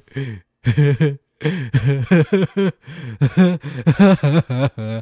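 A cartoon character's voice making a run of short, wordless, up-and-down vocal sounds, like playful babbling or chuckling.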